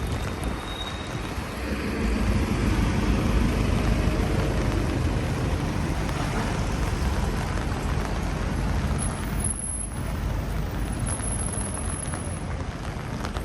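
City street traffic noise: a steady rumble of vehicles passing.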